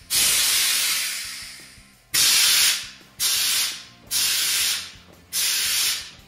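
Compressed air hissing through the air-ride valves of a bagged Chevy S10 as the bags are cycled: one long hiss that slowly fades, then four shorter sharp hisses about a second apart.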